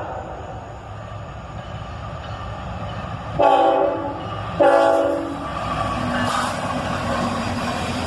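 A GE ET44AH freight locomotive's horn sounds two short chord blasts about a second apart, over the rumble of an approaching freight train.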